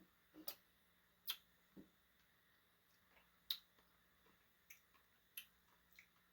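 Faint eating sounds over near silence: about seven short sharp clicks and taps, scattered unevenly, two of them louder.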